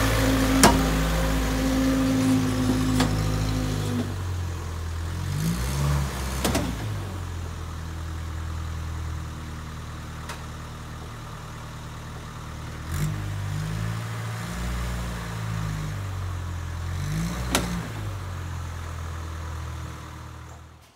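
1962 Land Rover Series 2A's 2.25-litre diesel engine pulling the truck slowly along in four-wheel low. It is loud at first and then fades as the truck moves away, and the engine revs up briefly three times as it climbs. Several sharp knocks come through, in a truck whose rear differential's ring and pinion are broken.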